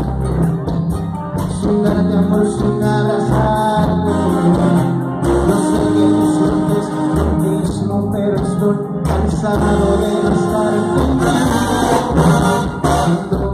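A band playing live with singers, the bass strong and the music loud and continuous.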